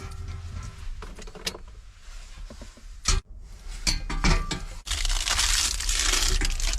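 Clicks, clatter and a sharp knock about three seconds in as parts of a homemade heater stove are handled, then a steady hiss from about five seconds in.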